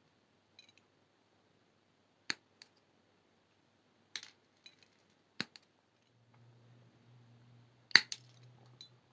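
Sharp metallic clicks and ticks of small jewelry pliers and brass wire being worked, scattered irregularly, the loudest near the end. A faint low hum comes in about six seconds in.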